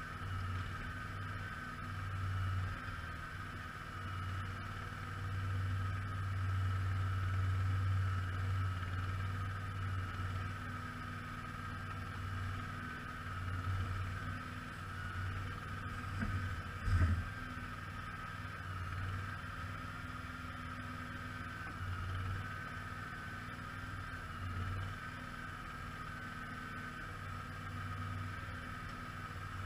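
Simplicity Legacy XL garden tractor's engine running steadily, its level swelling and easing a little, with a brief knock about 17 seconds in.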